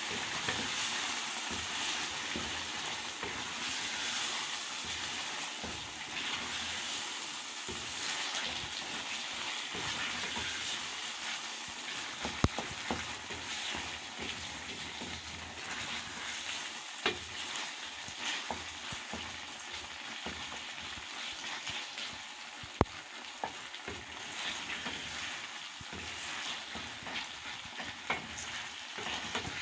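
Liver frying in a pan with capsicum, a steady sizzle as it is stirred, with a few sharp knocks of the spoon against the pan.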